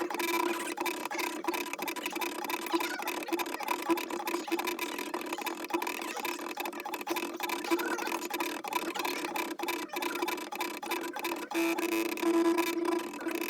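Stepper motors of a CNC drawing machine running as it moves the pen, a steady whine with fast irregular clicking and ticking.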